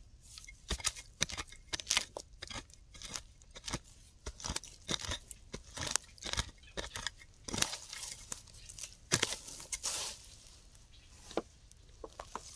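Digging for wild yam tubers: a hand digging tool crunching into soil and roots in quick, irregular strokes, about two or three a second, thinning out near the end.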